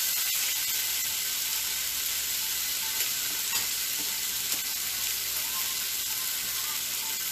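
Steak and asparagus frying on a stovetop griddle: a steady sizzle and crackle of hot fat, with a few faint ticks.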